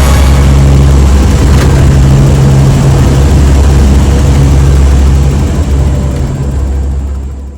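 Four-turboprop P-3 Orion maritime patrol aircraft's engines and propellers, a loud steady drone that fades over the last second.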